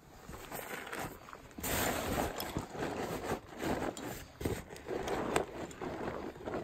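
Rustling and crinkling of stiff stuff sacks and backpack fabric as a gear pod is pushed down into a roll-top pack, with scattered light scrapes and knocks. It gets louder about two seconds in.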